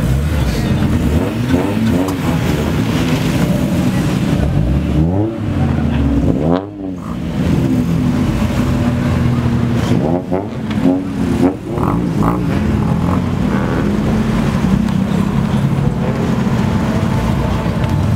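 Modified Japanese cars driving past close by one after another, their engines revving in repeated rises and falls of pitch as each goes by.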